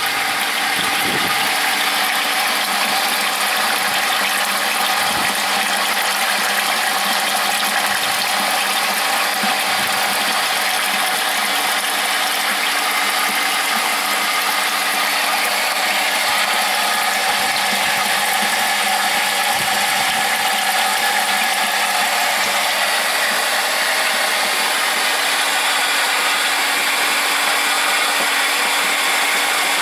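Chemical power-flushing rig's pump running steadily, circulating dark, sludge-laden water from a closed heating circuit back into its open tank. It makes a constant hum with a rushing noise over it.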